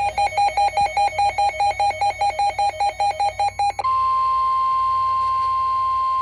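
Weather radio alert tones: rapid two-pitch electronic beeping, about six beeps a second, then, about four seconds in, a single steady 1050 Hz NOAA Weather Radio warning alarm tone, the signal that a warning is about to be broadcast.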